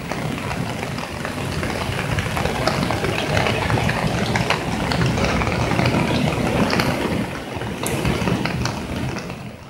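Swollen, muddy floodwater rushing and churning over a ledge: a loud, steady rushing noise with a low rumble.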